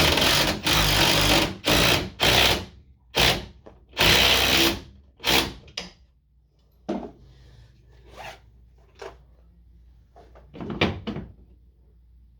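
A power tool driving into the wall in seven or eight short bursts over the first six seconds, followed by a few fainter knocks.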